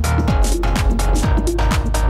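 Electronic dance music with a steady kick drum about two beats a second and sharp cymbal hits between.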